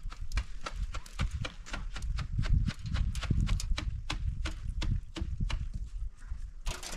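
Quick, irregular knocking and clicking, about three or four a second, from laying concrete blocks on a wall, with a low rumble underneath.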